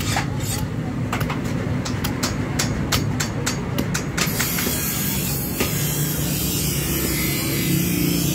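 A small hatchet chopping a wooden hammer handle held upright on a wooden stump: a quick run of sharp chops, about three a second, for the first four seconds. After that a steady, low engine-like rumble takes over, with only an odd chop.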